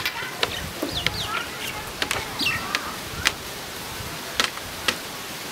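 Birds chirping, short rising and falling calls, over steady wind noise, with a few sharp clicks.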